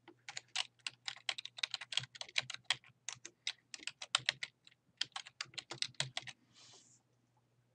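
Typing on a computer keyboard: a quick, uneven run of keystrokes that stops about six and a half seconds in.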